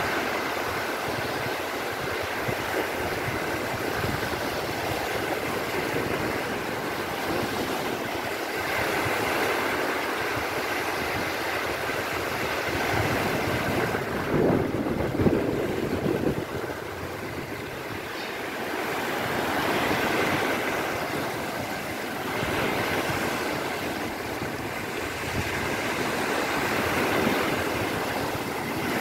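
Sea surf breaking and water washing around a person's legs as they wade through shallow waves, with wind buffeting the microphone. The sound swells louder for a moment about halfway through.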